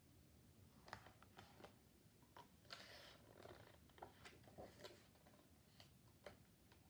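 Faint paper rustling and light clicks of a picture book's pages being turned by hand, with one brief swish a little under three seconds in.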